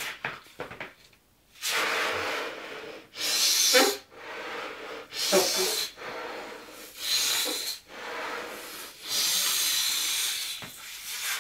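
Deep breaths drawn in and blown back out of a balloon of nitrous oxide (laughing gas): a run of hissing rushes of air, one every second or two, with a couple of short falling squeaks.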